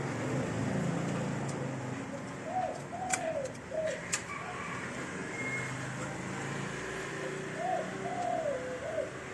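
A dove cooing in two short phrases of arched notes, one about a third of the way in and one near the end, over a low steady hum. Two sharp clicks come about three and four seconds in, from wiring being handled inside the copier.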